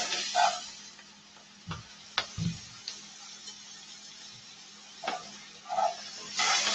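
Chopped vegetables sizzling quietly in a cast-iron skillet, with a few clicks and scrapes of metal tongs stirring them. The sizzle and stirring grow louder near the end.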